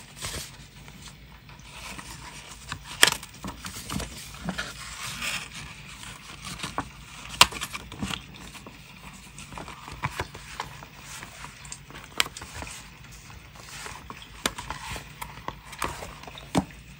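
Close-up paper-crafting sounds: paper and stationery rustling and sliding on a desk, with scattered sharp taps and clicks, the loudest about three and seven seconds in.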